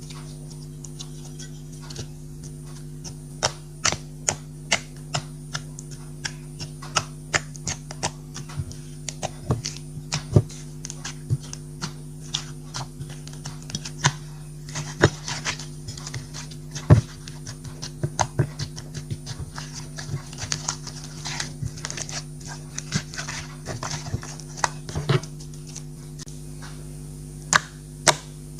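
Slime being squished and stretched by hand, giving irregular sticky clicks and pops, at times several a second, over a steady low hum.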